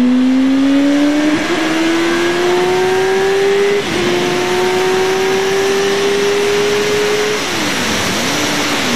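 Yamaha R1's inline-four engine pulling hard under acceleration over wind rush on the microphone. Its note climbs steadily, drops at an upshift about four seconds in and climbs again. Near the end it dips sharply twice and settles to a lower steady note as the throttle eases.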